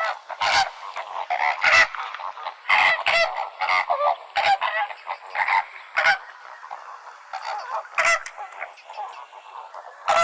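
A flock of flamingos honking: many short calls overlapping in quick succession, thinning out after about six seconds.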